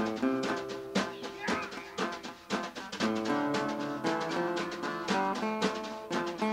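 Background music with a steady drum beat under sustained melodic notes.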